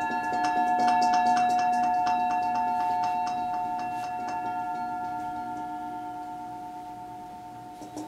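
Struck singing bowl ringing with a few clear, steady tones that slowly die away, over light metallic taps in the first few seconds. It is struck again near the end.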